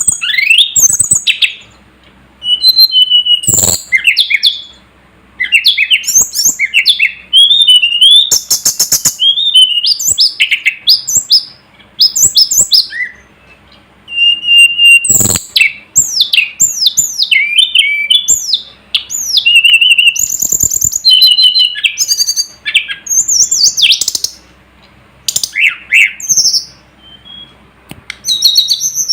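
Tledekan gunung (sulingan gunung) singing a loud, high-pitched song of rapid, varied chirps and whistles with quick pitch sweeps, delivered in phrases with short pauses between them. Two sharp clicks cut in, one a few seconds in and one about halfway through.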